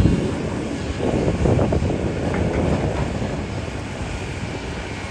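Excavator's diesel engine running under load, with a louder, rough rattling stretch from about one to three seconds in.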